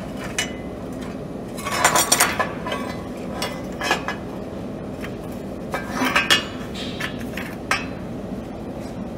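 Steel square-tube workpieces and a lever clamp being handled on a steel welding table: metal clinks and clanks in two short clusters, about two seconds in and again about six seconds in, with a few single knocks between, over a steady machine hum.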